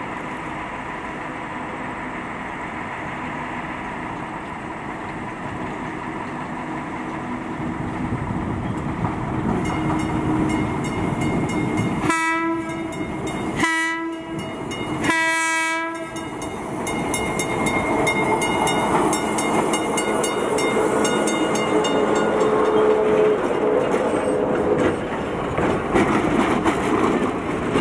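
Diesel locomotive approaching slowly, its engine growing louder, then sounding its horn three times about twelve seconds in (a long blast, a short one and a long one), the warning for a road crossing. After that the locomotive and its passenger cars pass close by, with rapid, regular clicking of the wheels on the rails.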